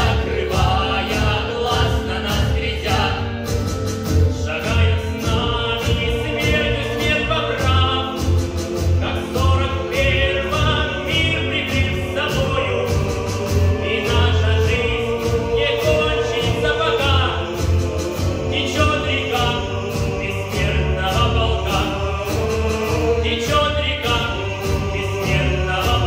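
Children's choir and a boy soloist singing a song over a recorded backing track, with a recurring bass beat underneath.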